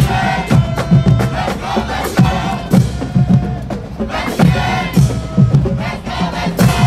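HBCU marching band playing, drums beating a heavy, steady rhythm, with shouting voices over the music.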